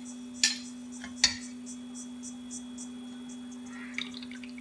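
Two sharp clinks of a spoon against kitchenware, a little under a second apart, over a steady low hum. Near the end comes the soft pour of a wheat-flour and milk batter into a steel saucepan of hot milk.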